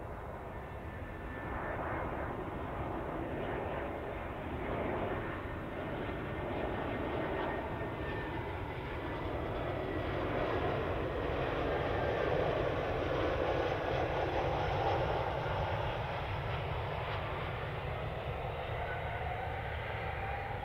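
Airbus A320 airliner's CFM56 jet engines on landing: a steady roar that grows as the aircraft comes in low over the runway and is loudest about twelve to fifteen seconds in, easing slightly as it rolls out.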